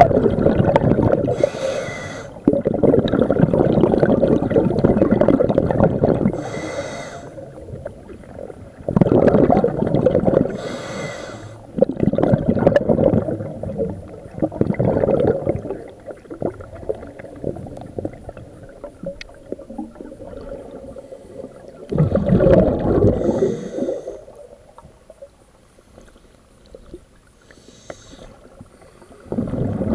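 Scuba diver breathing through a regulator underwater: a short hiss from the regulator on each in-breath, then a loud rush of exhaled bubbles lasting two to three seconds, repeated several times with a longer quiet pause in the middle.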